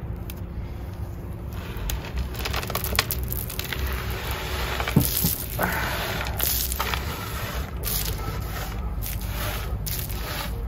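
Gloved hands crumbling and scraping wet old potting soil off the root ball of an apple tree being repotted: crackling, scraping and rustling, with a louder knock about five seconds in. Near the end, loose soil is brushed across the tabletop.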